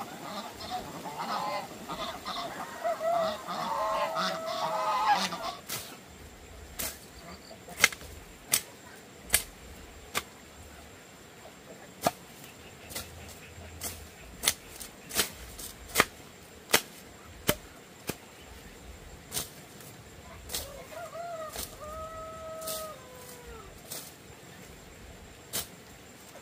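Farm waterfowl honking several times. A run of sharp, irregular taps follows, roughly one a second and louder than the calls, and there is one more drawn-out honk near the end.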